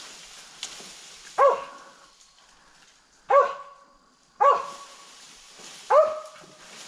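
A hunting dog barking at a squirrel it has treed: four single barks, one to two seconds apart.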